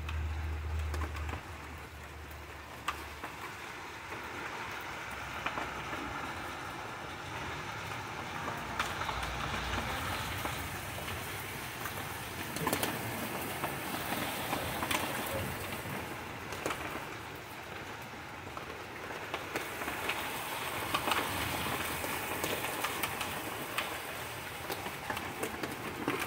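Rain falling steadily on the yard, an even hiss with individual drops ticking, growing heavier about ten seconds in.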